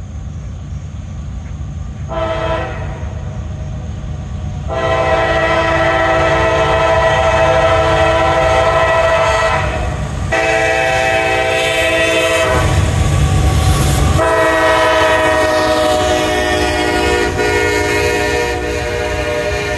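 Diesel freight train locomotive approaching and passing, its multi-tone air horn blowing a short blast about two seconds in, then long blasts. Loud low engine rumble as the locomotive goes by about two-thirds of the way through, then the train's cars rolling past under more horn.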